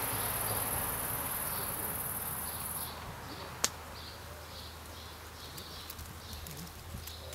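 Long-winged conehead bush-cricket stridulating: a continuous, very high-pitched hiss that stops abruptly about three seconds in. A single sharp click follows less than a second later.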